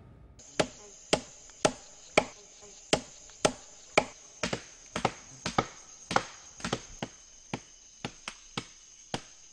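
Repeated sharp wooden blows, about two a second, of a stick pounding a fibrous vine against another piece of wood, mashing it to release its fish-poison juice.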